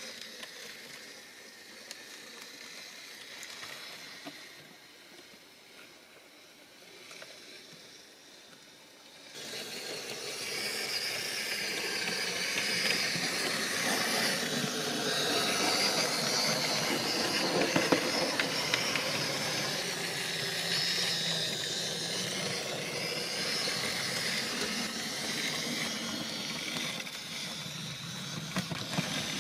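HO-scale model train running along the track: a steady rushing, rattling hiss of its wheels on the rails. After a quieter stretch it comes in suddenly, about nine seconds in, and stays loud.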